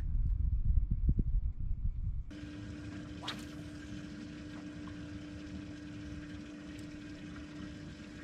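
Low rumbling wind noise on the microphone for about two seconds, then it cuts abruptly to a boat motor's steady hum at a constant pitch. A brief rising swish passes about three seconds in.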